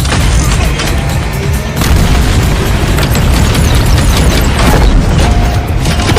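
Dramatic soundtrack music layered with repeated heavy booms and blasts of action sound effects.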